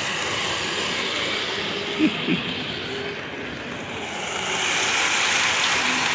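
O-scale model trains rolling on three-rail track, a steady rumbling hiss mixed with exhibition-hall background noise, growing louder in the second half as the cars run close by. Two brief pitched chirps sound about two seconds in.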